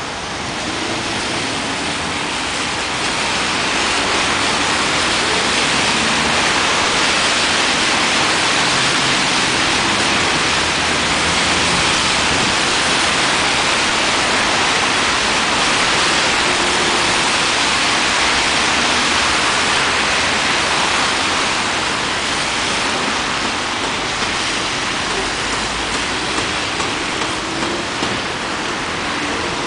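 Steady hiss of city road traffic on a wet road, tyres running through surface water. It swells in the first few seconds and eases off somewhat in the last third.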